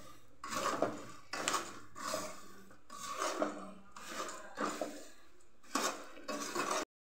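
Metal spoon stirring dry puffed rice in a kadai, making repeated scraping, rustling strokes against the pan, about one and a half a second. The sound cuts off suddenly near the end.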